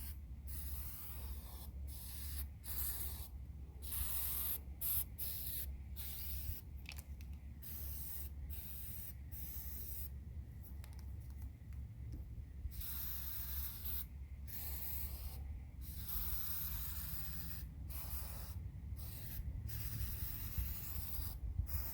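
Aerosol can of rubber sealant spraying in many short hissing bursts, each lasting around a second, as it coats the seams around a stove chimney boot, over a steady low rumble.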